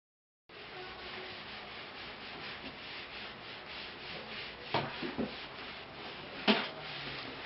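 Cloth scrubbing across a wooden floor in repeated strokes, with two sharp knocks, one a little over halfway through and a louder one near the end.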